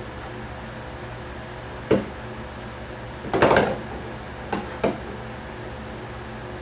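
Handling noises from building work: a sharp knock about two seconds in, a short clatter a second or so later, then two lighter knocks. A steady hum runs underneath.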